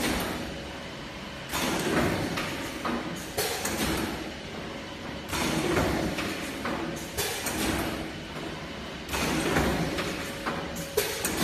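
Non-PVC IV bag making machine running through its cycle: noisy swells of mechanical motion with sharp clacks, repeating about every four seconds.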